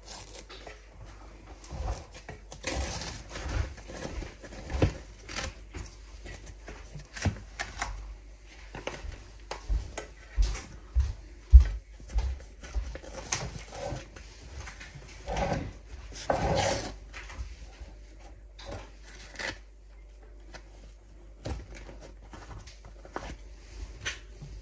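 Baking paper being peeled off the bottom of a baked sponge cake in a metal baking tray: irregular paper crinkles and rustles with small scattered clicks and taps.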